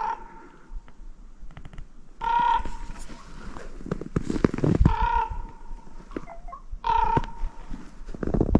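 A crow calling repeatedly: four short calls about two seconds apart, each trailing off in a held note.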